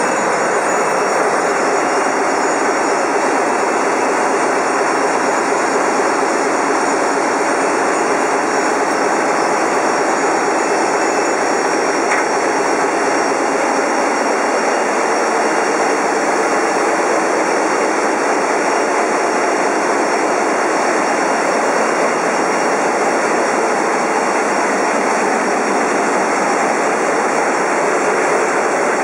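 Large ship's diesel engines running in the engine room: a loud, steady mechanical noise with no pauses or changes.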